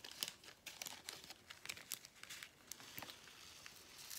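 Faint crinkling of plastic with scattered light ticks, from handling diamond-painting supplies: the plastic drill tray and the canvas's plastic film.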